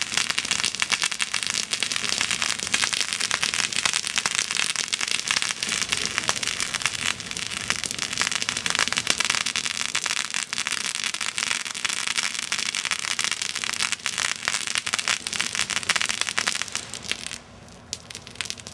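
Two small ground-effect fireworks crackling, a dense rapid stream of small pops that dies away near the end.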